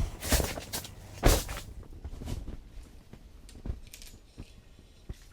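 A few short knocks and clicks of handling gear, louder in the first second and a half and fainter after.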